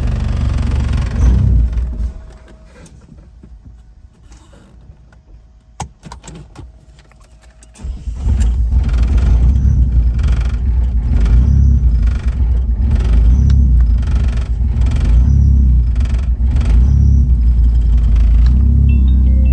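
A 1997 Mitsubishi Eclipse GSX's turbocharged 4G63 inline-four running, then cutting out about two seconds in; after a few seconds of quiet with a key click, it fires up again and idles with a regular pulsing beat. The car has an idle problem and doesn't like cold starts.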